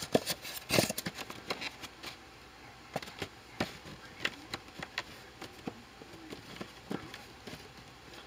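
Scattered light clicks and taps of hands handling unboxing packaging around the car, irregular, with the sharpest ones in the first second.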